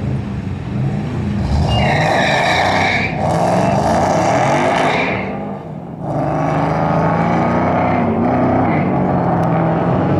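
A supercharged Roush Mustang V8 and a second car launch off the drag-strip line at full throttle about a second and a half in, their engines revving hard through the gears with brief drops near three and six seconds in. The Mustang is spinning its tyres and failing to hook up on a slick track.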